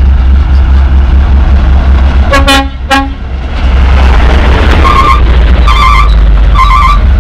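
Hino Ranger coal dump trucks passing close, their heavy diesel engines rumbling. Two short horn toots come about two and a half seconds in, then three quick, higher-pitched horn beeps near the end.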